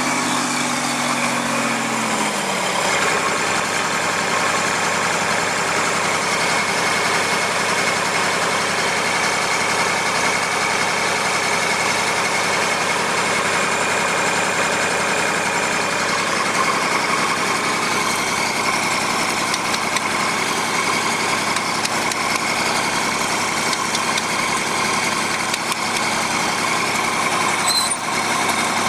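Lincoln SA-250 welder-generator's diesel engine running. About two seconds in its pitch drops, and it settles to a lower, even speed.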